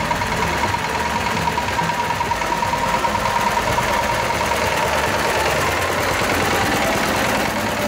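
Vintage tractor engine running slowly at low revs, an even, steady throb as the tractor pulls past close by.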